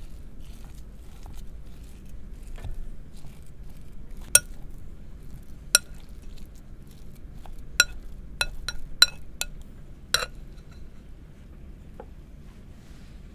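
Metal spoon clinking against a glass mixing bowl while mashing tape (fermented cassava): faint scraping at first, then about eight sharp, ringing clinks over several seconds in the middle.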